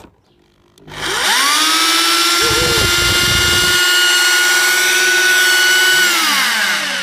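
Interskol P-22/620ER 620-watt rotary hammer running unloaded with no bit, in rotation-only mode. Its motor spins up about a second in with a rising whine, runs at steady full speed, then winds down near the end.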